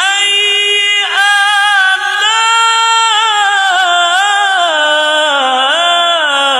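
A man reciting the Quran in melodic qirat style, drawing out one long held phrase with wavering ornaments that falls in pitch near the end.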